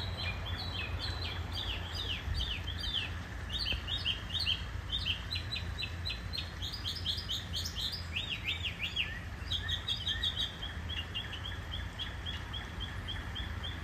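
Songbirds chirping in quick runs of notes, ending in an even series of short notes about three a second. Underneath is the steady flowing of a shallow creek.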